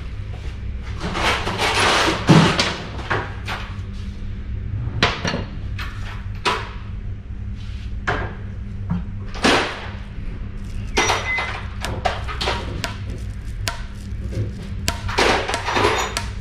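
Metal tools and parts being handled on a workbench: irregular clinks and knocks with short rustling swishes, over a steady low hum.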